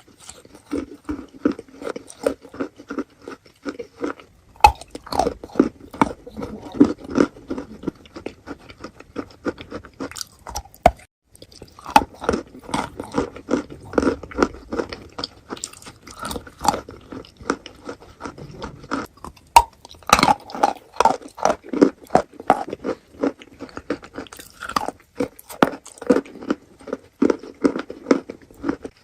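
Close-miked chewing of wet chalk with clay paste: rapid, wet crunching and smacking bites, with two short breaks between mouthfuls.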